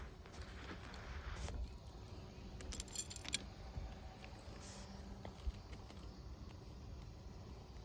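Metal objects clinking in a brief jangle about three seconds in, with a few faint ticks and a steady low rumble underneath.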